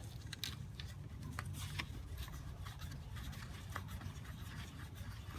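Faint scattered clicks and light scraping of hands handling small metal parts and screws while a coolant hose fitting is fitted, over a steady low hum.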